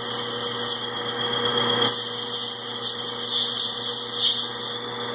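Metal lathe running while a cutting tool turns down a Delrin plastic rod: a steady motor whine with an uneven high swishing as the tool peels off curling plastic chips.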